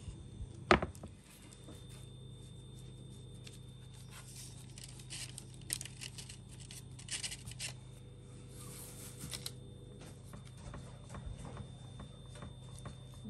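Parchment paper on a baking tray crinkling and rustling in short scrapes as unbaked stuffed dough pastries are pressed and set down on it, after one sharp knock about a second in, over a steady low hum.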